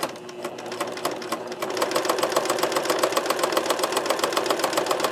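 Pfaff Select 1546 electric sewing machine stitching a second row through knit fabric, its needle hammering in a fast, even rhythm. It runs slower and softer at first, then speeds up about a second and a half in.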